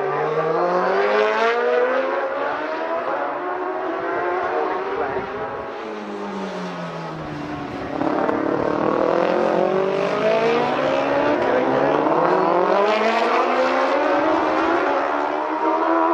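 Racing motorcycles at speed on a road circuit, several engines overlapping, their pitch rising and falling again and again as they accelerate and pass; louder from about halfway through.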